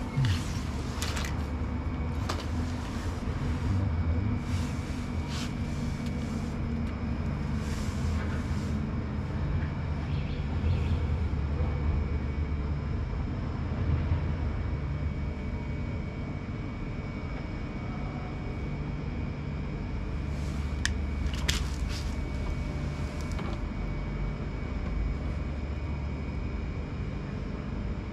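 A machine running with a steady low hum and a faint steady high whine, broken by a few brief rattles and clatters.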